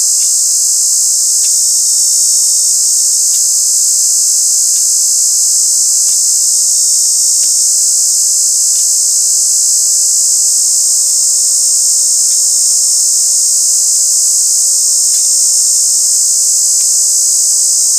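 A cicada's loud, unbroken high-pitched buzz, a racket that holds steady without a break.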